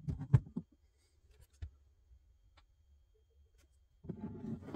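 A vintage eggbeater hand drill being handled on a wooden workbench. There is a cluster of knocks and clicks at the start, a few faint ticks, then a short rattling burst about four seconds in.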